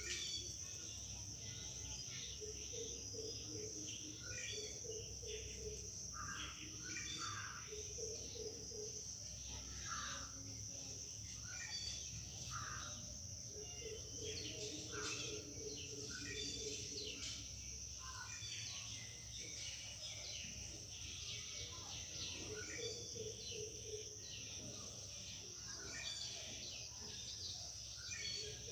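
Faint background of birds chirping now and then over a steady high-pitched insect-like whine, with short scratchy squeaks from a marker drawn on a whiteboard.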